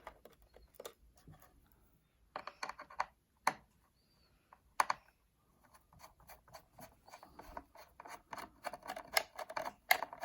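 Light, irregular clicking and scraping of a small Phillips screwdriver working tiny screws out of a metal bracket inside an iMac. The clicks come in bursts, with one sharp click a little before the middle and the busiest run near the end.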